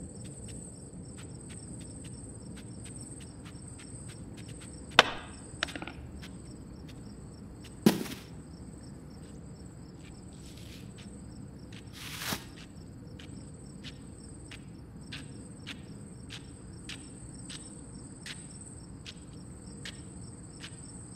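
Crickets chirping steadily in the night. A sharp knock comes about five seconds in with a lighter one just after, a louder thud about eight seconds in, and a shorter knock about twelve seconds in.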